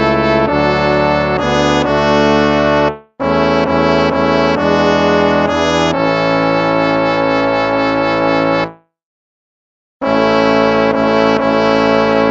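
Instrumental hymn music with held chords. It breaks off for a moment about three seconds in, stops completely for about a second near the end, then starts again.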